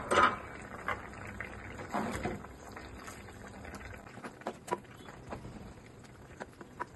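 Raw shrimp landing in a thick curry in a clay pot with a loud wet plop, then a wooden spatula and ladle stirring it, giving scattered light clicks and scrapes against the pot.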